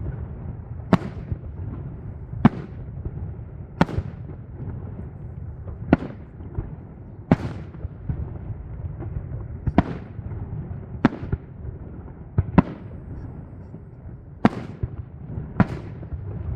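Fireworks display shells bursting in the air, one sharp bang every second or two, about ten in all, over a steady low rumble.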